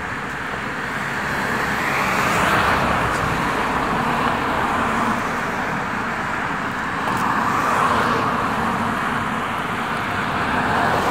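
Road traffic noise: cars passing on a road, the tyre and engine noise swelling twice, about two seconds in and again about eight seconds in.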